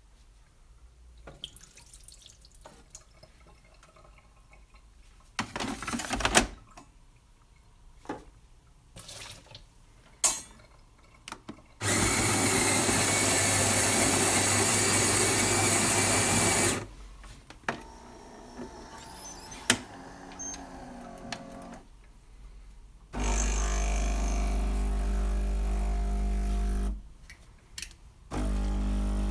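Nivona bean-to-cup coffee machine working through a cycle. First come a few clicks and knocks, then about five seconds of loud, even whirring noise. Near the end a low-humming pump runs twice.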